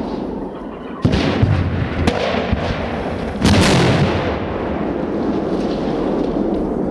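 Special-effects pyrotechnic explosions going off in a series: a sharp blast about a second in, a few smaller cracks, then the biggest blast about three and a half seconds in, with a continuous low rumble between and after.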